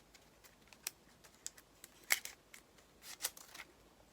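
Small clicks and brief rustles from handling the EarPods packaging and its paper manual, one sharper click about two seconds in and a short run of rustling near the end.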